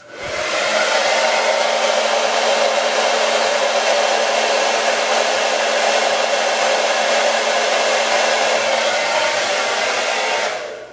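Handheld hair dryer switched on and running steadily, a rush of air over a steady motor hum, then switched off near the end as it winds down.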